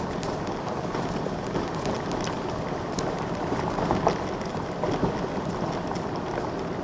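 Golf cart rolling over a gravel road: a steady crunch of tyres on loose gravel, with scattered clicks and knocks as it bumps over stones, the sharpest about four seconds in.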